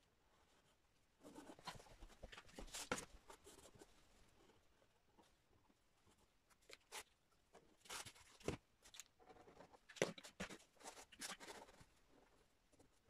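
Faint handling sounds of small stretched canvases being moved about on a table: scattered light knocks and taps with some rustling, with a few sharper knocks in the second half.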